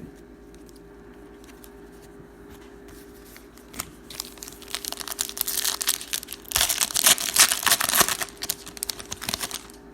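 A trading-card pack wrapper being torn open and crinkled by hand: irregular crinkling rustles start about four seconds in and are loudest a little past the middle, then stop just before the end.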